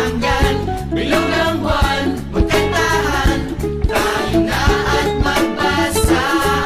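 Upbeat background music with a steady beat and a bright, Latin-tinged groove.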